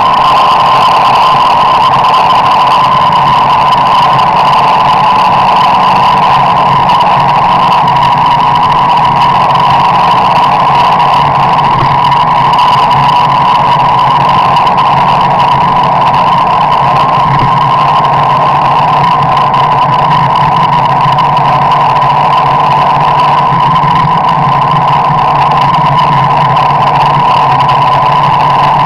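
Car driving, heard from inside the cabin: a loud, unchanging drone with a steady hum over a low engine rumble.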